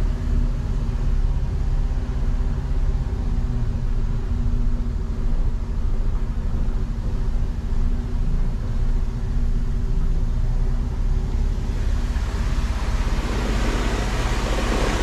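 Mercedes truck's diesel engine running at low speed as the truck crawls along, a steady low drone with a few held tones. A hiss grows in about twelve seconds in and lasts to the end.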